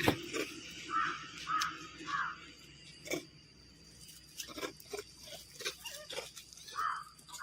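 Short animal calls: three in quick succession starting about a second in, and one more near the end, with scattered clicks and light knocks between them.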